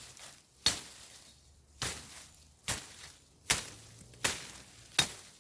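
Ontario Bushcraft machete chopping into green, young hornbeam: six sharp blade strikes, a little under a second apart.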